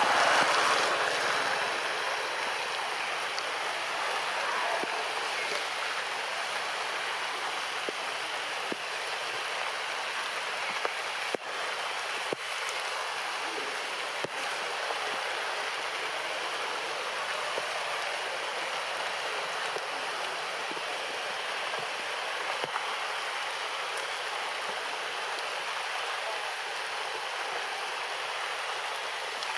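Steady rain falling, an even hiss, a little louder in the first second, with a few sharp ticks near the middle.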